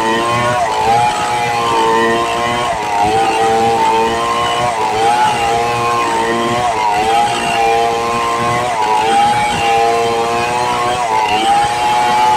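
Stihl 070 two-stroke chainsaw at full throttle ripping lengthwise through a squared red meranti log. Its engine pitch sags and recovers every second or two as the chain loads up in the cut.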